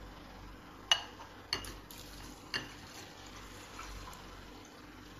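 Three sharp clinks of crockery as a mug is handled among the dishes, then a thin stream of water poured from the mug into a bowl of mung beans to soak them.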